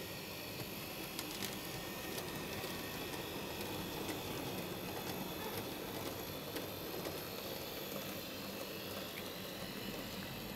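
N gauge model Class 37 locomotive running along the track with a rake of wagons: a quiet, steady running noise that swells slightly through the middle, with occasional light clicks.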